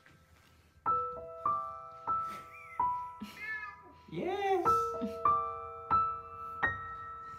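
Gentle piano background music, starting about a second in. Over it a cat gives a few short chirping calls and then one meow, around the middle.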